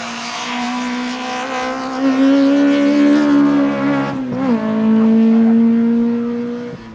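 Small hatchback race car's engine accelerating hard at full throttle. The revs climb for about three seconds, there is a quick upshift about four seconds in, then the engine holds steady at high revs until the sound drops away at the very end.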